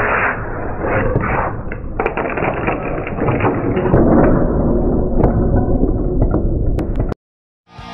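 Thuds and clatter as a hot-glued spaghetti column is knocked down and the weight plates loaded on it crash to the floor, over a continuous noisy din. The sound cuts off suddenly near the end.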